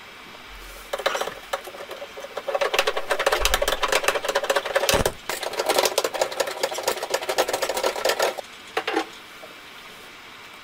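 Socket ratchet wrench clicking rapidly as it undoes the fasteners that hold a tailgate grab-handle trim. The clicking comes in long runs from about a second in, broken by a single knock about halfway through, with a short last burst near the end.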